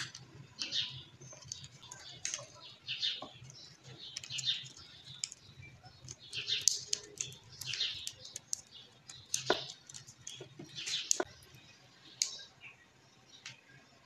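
Paper crinkling and rustling in short irregular bursts as it is folded and pressed around a fan motor's winding wires, with a few sharp clicks.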